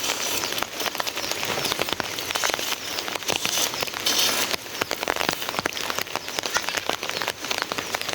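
Steady rain falling on a surface, with many separate drop hits close by.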